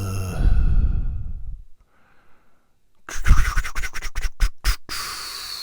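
A low, drawn-out voice sound fading out. A few seconds later a small handheld drill whirs and rattles for about three seconds, its high whine falling in pitch as it slows near the end.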